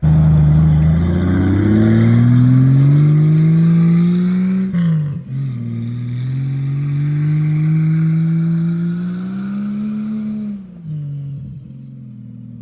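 Jeep engine revving hard under load, its pitch climbing for about four seconds. It dips sharply about five seconds in, climbs again, and falls back toward a low steady idle near the end.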